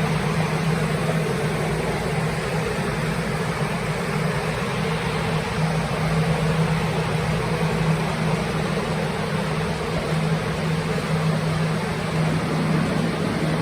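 Plastic drying fans (air movers) running steadily: a loud, even whir of rushing air over a constant low hum from the motors.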